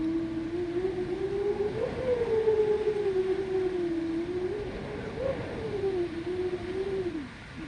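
Winter wind moaning: a hollow, wavering tone that rises and falls in pitch over a steady rush of wind. The tone sags and fades out shortly before the end, leaving the softer rush.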